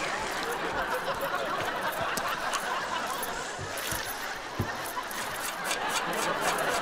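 Studio audience laughing steadily throughout.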